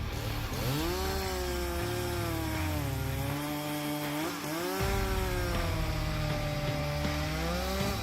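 Chainsaw cutting through a log. The engine pitch drops as the chain bites about a second in, lifts briefly a little past halfway, then sags again under load.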